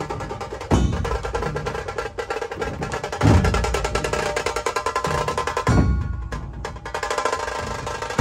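Fast percussion-led music: a dense run of rapid drum strokes, with a deep thump about every two and a half seconds.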